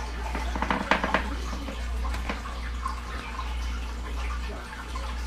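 Water sloshing and dripping in a reptile's water dish as a ball python holds mice under the water to drown them, with a cluster of small splashes about a second in and a few more later.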